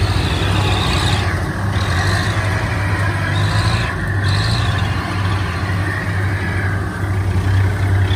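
Diesel engines of Kubota rice combine harvesters running steadily, a constant low drone as the machines work and travel across the field.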